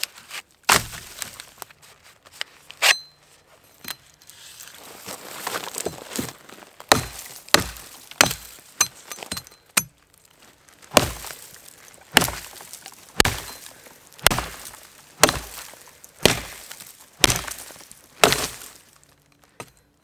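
Cold Steel Viking Battle Axe chopping into a log: a couple of strikes early, then a steady run of sharp chops about one a second through the second half.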